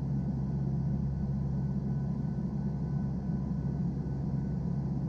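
Steady drone of a turboprop aircraft's engines and propellers heard from inside the cabin: a constant low hum with a few faint steady whining tones above it.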